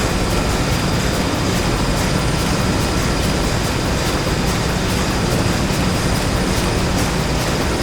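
Factory machinery ambience made as a stage sound effect: a steady, dense mechanical din with faint constant whining tones and a regular light clatter about twice a second.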